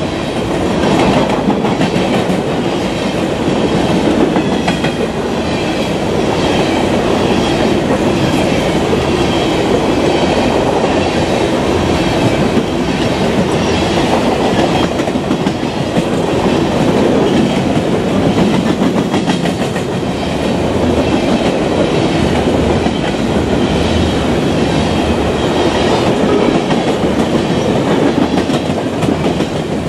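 Empty open-top coal hopper cars of a freight train rolling by, their steel wheels clattering over the rail joints under a steady rumble and rattle.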